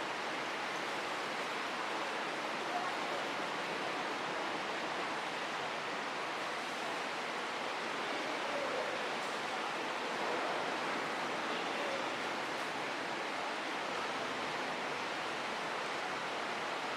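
Steady rushing background noise, even and unchanging, with a few faint distant voices now and then.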